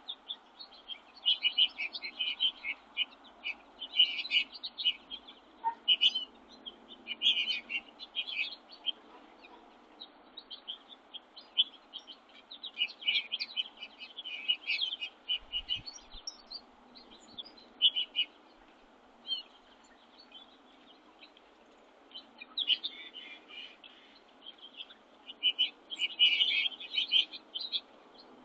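Small songbirds at a winter feeder chirping and twittering in quick overlapping clusters, with a few short lulls, over faint steady background noise.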